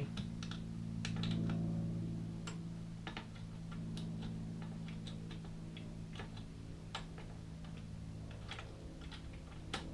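Irregular small clicks and taps, about two a second, of a bolt, screw and metal mounting plate being handled and a screw being started by hand, over a steady low hum.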